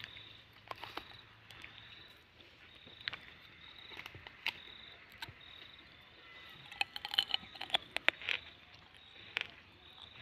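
Insects chirping in short, high, repeated trills, with scattered sharp clicks and crackles of dry leaves; the clicks bunch together about seven to eight seconds in.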